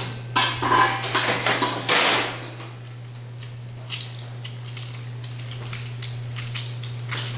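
Stainless steel mixing bowl clattering and clinking several times on a wooden board as lobster pieces are handled in it during the first two seconds. After that it goes quieter, with a few faint ticks as juice is squeezed by hand and drips into the bowl, over a steady low hum.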